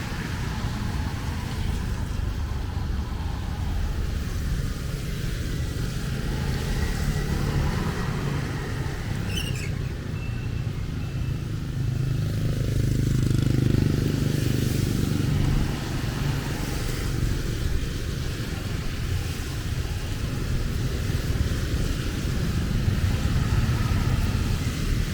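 Road traffic, mostly motorbikes, passing over a steady hiss. One vehicle passes loudest about halfway through.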